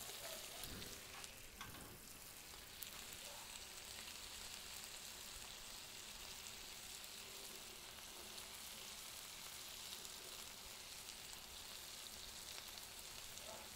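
Boneless chicken thighs sizzling steadily as they sear on a propane Blackstone flat-top griddle. A few faint clicks in the first couple of seconds.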